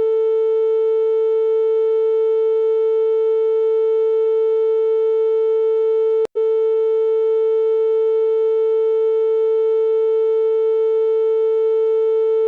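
Synthesized steady tone with a stack of overtones, held at one pitch and a constant level. It cuts out for an instant with a click about six seconds in, then resumes.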